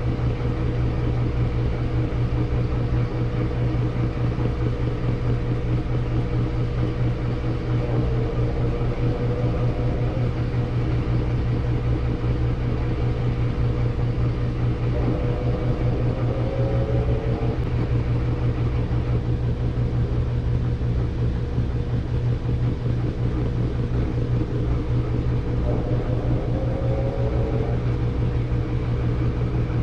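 Samsung washing machine running its cycle: a steady low motor hum, with a higher whine that glides in pitch three times.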